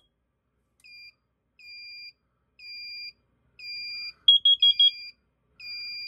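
Carbon monoxide detector on a Fire-Lite MS-4 fire alarm system sounding its test alarm: a group of four quick, loud, high beeps about four seconds in. Underneath, a softer beep repeats about once a second.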